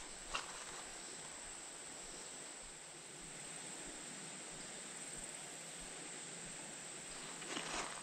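Faint, steady, high-pitched chorus of summer insects, with one small click just after the start.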